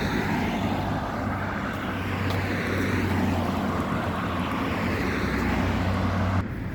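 Road traffic passing close by on a main road: cars driving past in swells of tyre and engine noise over a steady low hum, which drops away suddenly near the end.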